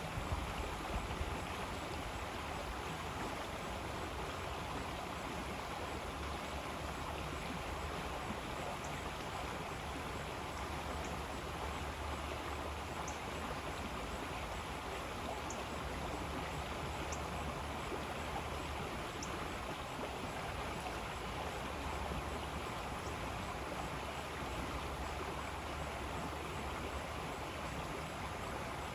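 River water flowing steadily, a continuous even sound without a break.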